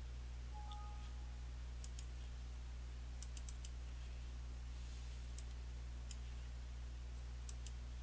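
Computer mouse clicks while browsing a file dialog: a few scattered single clicks, with a quick run of four about three seconds in, over a steady low hum.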